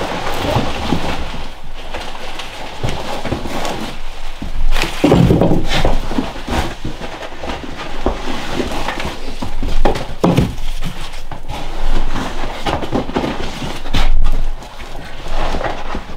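Irregular knocks, thuds and rustling from green onions being handled on a wooden kitchen counter, with a few heavier thumps about five, ten and fourteen seconds in.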